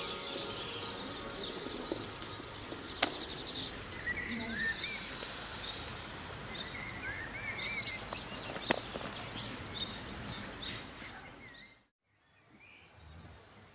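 Outdoor ambience with wild birds chirping in short calls, and two sharp clicks about three and nine seconds in. The sound cuts out near the end and returns as a quieter background.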